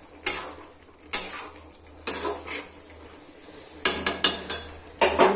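Metal spoon stirring a steel pan of simmering potato and papad curry, scraping and clinking against the pan. The strokes come about a second apart at first, then several quicker ones near the end.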